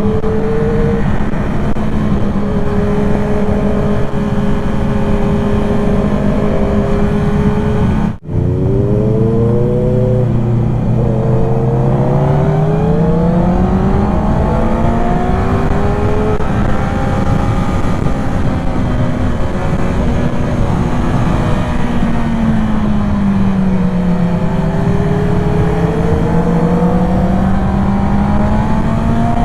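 Motorcycle engine running at speed on the road, its pitch holding, then falling and rising again with the throttle. About eight seconds in the sound breaks off for an instant, and afterwards the engine starts low and climbs.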